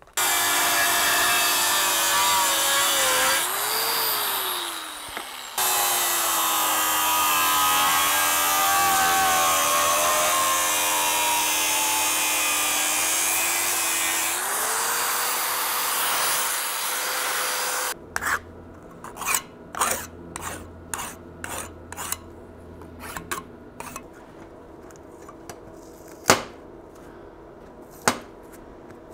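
Metabo angle grinder cutting a small sheet-metal plate clamped in a vise. Its whine drops in pitch as the disc bites and rises to a steady higher pitch when it runs free. It stops abruptly about two thirds of the way through, and a run of short scrapes and clicks follows as a razor blade scrapes blue tape off the plate.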